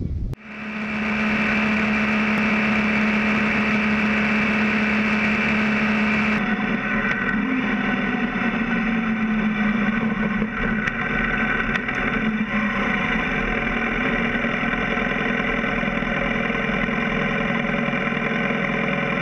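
BMW F650 GS motorcycle engine running steadily under way on a gravel road, heard from a camera mounted low beside the front wheel. It cuts in abruptly at the start, and the sound shifts suddenly about six seconds in, after which the engine note wavers a little.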